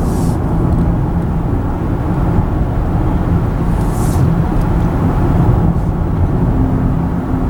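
Car being driven: steady road and engine rumble, with a faint hum. Two brief hisses come through, near the start and about four seconds in.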